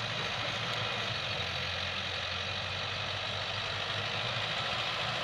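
Mahindra Arjun Novo 755 DI tractor's diesel engine running steadily under load while it pulls a rotavator through the soil.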